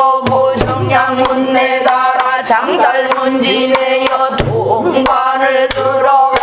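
A woman singing pansori with held, wavering notes, accompanying herself on a buk barrel drum: sharp stick strokes at irregular intervals and, at times, low drum thuds.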